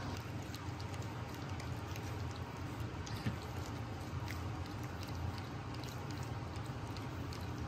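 French bulldog puppies lapping and smacking at wet puppy mush in a feeding tray: a steady stream of small wet clicks and slurps, over a steady low hum.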